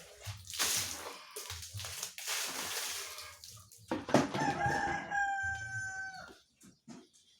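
A rooster crows once, a drawn-out call starting about four to five seconds in and dropping at the end. It is heard over a wet swishing and scrubbing noise.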